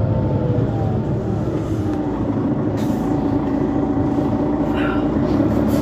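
Mercedes-Benz Citaro C2 city bus with a Euro 5 diesel, running under way: steady engine and drivetrain noise with a whine that falls slowly over the first couple of seconds, then climbs a little near the end.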